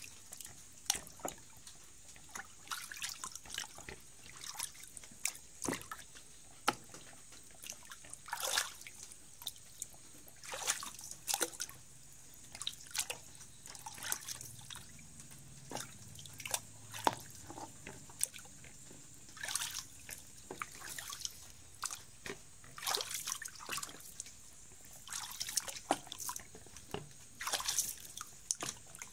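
Water dripping, trickling and splashing around a small wooden canoe being paddled through a weedy swamp, in many short irregular splashes.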